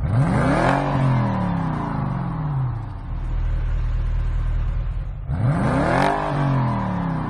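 Car engine revving, its pitch sweeping up quickly and then falling away slowly. It happens twice, at the start and again about five and a half seconds in, over a steady low rumble.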